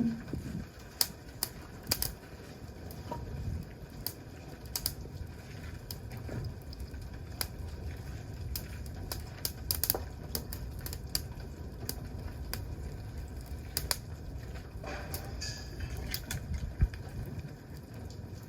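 Wood campfire crackling: irregular sharp pops and snaps, several a second at times, over a low steady rumble.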